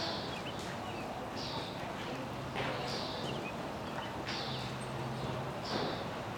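Horse cantering on sand footing in an indoor arena: soft, muffled hoofbeats with a regular swish about every second and a half.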